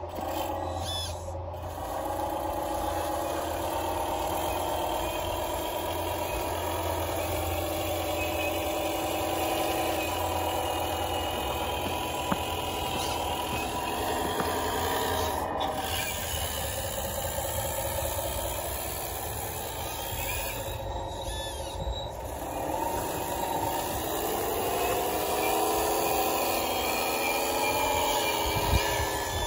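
1/14-scale hydraulic RC wheel loader running: a whine of several tones from its electric drive and hydraulic pump that rises and falls in pitch as it pushes a load of snow with its box plow.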